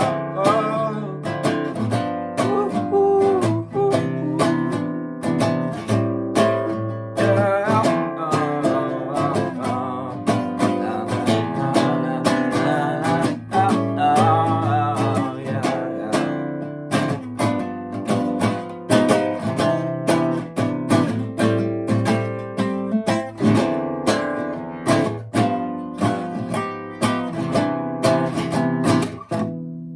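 Acoustic guitar strummed in a steady rhythm, an instrumental passage of the song.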